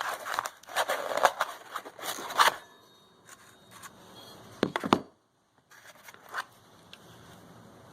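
Packaging rustling and crinkling for a couple of seconds as the Vari-Grind 2 sharpening jig is unpacked. Then come quieter clicks and a couple of sharp knocks as the jig is handled.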